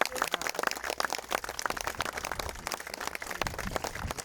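A group of people applauding, many hands clapping in a dense, irregular patter.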